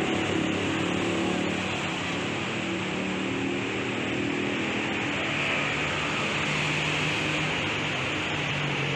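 Steady engine hum from the diesel locomotive of an approaching train, its pitch drifting slightly, over a constant hiss.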